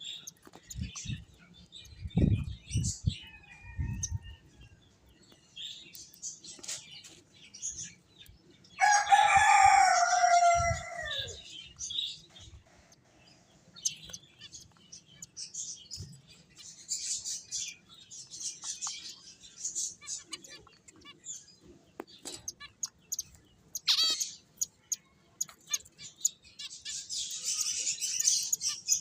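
Pet finches chirping and twittering in short, high calls throughout. About nine seconds in, a rooster crows once, loud and drawn out for about two and a half seconds, falling at the end. A few low thumps come in the first few seconds.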